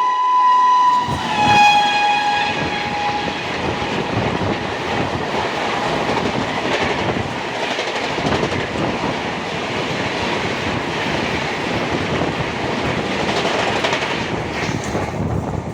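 Express train's horn sounding at high speed, then a second, lower horn note, followed by the coaches rushing past at about 130 km/h with a steady clatter of wheels over the rails.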